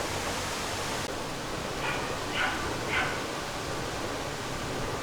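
A dog barking three short times, about half a second apart, over a steady background hiss.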